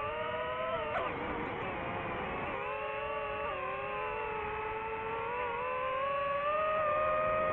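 DJI FPV drone's motors and propellers whining, several tones at once. The pitch dips sharply about a second in, then climbs slowly as the drone speeds up, getting louder near the end.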